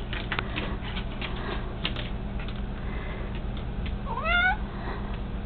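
A domestic cat gives a single short meow, rising in pitch, about four seconds in. Scattered faint clicks come before it.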